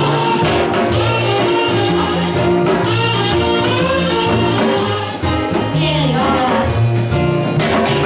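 Live acoustic band music: a woman singing into a microphone over a small acoustic guitar, upright double bass and light percussion.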